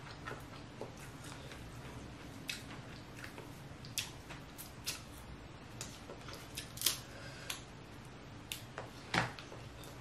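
Cooked snow crab legs being cracked and pulled apart by hand: scattered sharp shell cracks and snaps, the loudest about seven and nine seconds in, over a faint steady low hum.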